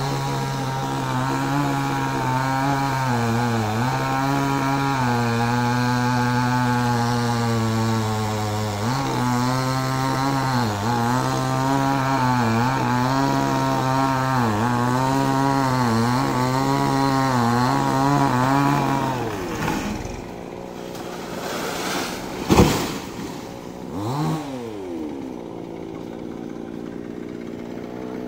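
Chainsaw running at full throttle as it cuts through a palmyra palm trunk, its pitch dipping again and again as the chain bogs in the wood. It cuts off about two-thirds of the way through. A few seconds later comes a single sharp, loud thump.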